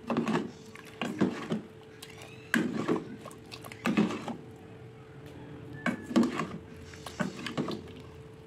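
A spoon stirring in a metal cooking pot, knocking and scraping against the pot in short clusters about every second or so. A steady low hum runs underneath.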